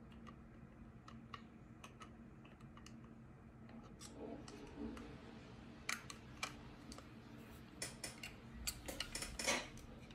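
Small clicks and scrapes of a screwdriver prying inside a condenser microphone's body to work its stuck circuit board loose. The clicks are sparse at first and come thick and fast in the last few seconds.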